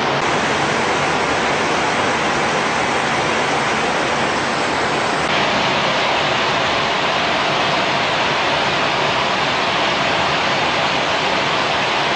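Steady, loud rushing noise with no distinct tones or rhythm, its upper range shifting slightly about five seconds in.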